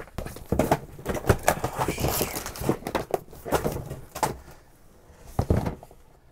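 Books and plastic VHS cases being rummaged through in a cardboard box: irregular knocks and clacks with some rustling, thinning out after about four seconds, with one louder knock near the end.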